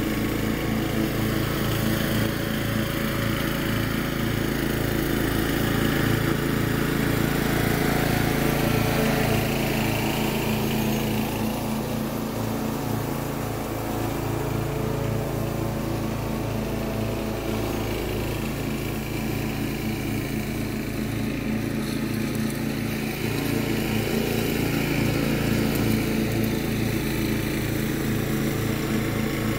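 Riding lawn mower running steadily while cutting grass, its engine note growing a little quieter partway through and louder again towards the end.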